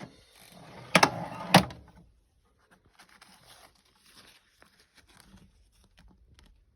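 Steel drawer of a Snap-on K260 tool chest sliding, ending in two sharp metal knocks about a second and a half in, then faint light clicks of tools being handled.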